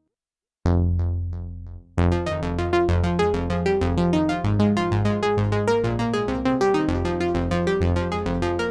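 Sequential OB-6 analog polysynth playing a preset: after a brief silence, a held bass note with a few bright, quickly fading notes, then about two seconds in a fast, evenly repeating sequenced pattern over a bass line.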